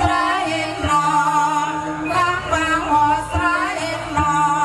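Javanese gamelan music for a kuda kepang dance, amplified through a PA: a sung vocal line over held metallophone tones, with a few low drum strokes.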